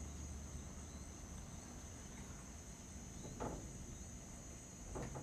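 Quiet night ambience: crickets trilling steadily and high over a low hum, with two faint soft sounds, one about three and a half seconds in and one near the end.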